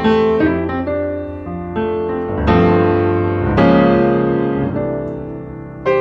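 Piano music: slow chords struck and left to ring and fade, a new chord every second or so.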